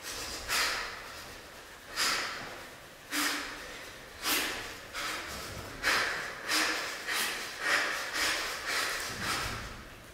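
Dancers' forceful breaths, sharp hissing exhalations repeated about a dozen times. They come about a second apart at first and quicken in the second half.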